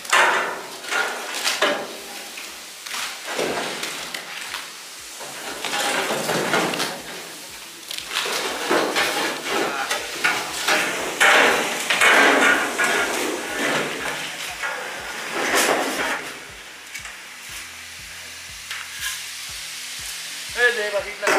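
Oil and masala sizzling in a giant cooking pot while beef tehari spices are fried, the sound rising and falling in repeated swells as the mix is stirred.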